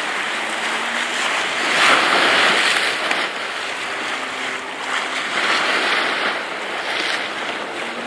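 Small sea waves washing onto the shore, the hiss of the water swelling and ebbing in surges, loudest about two seconds in.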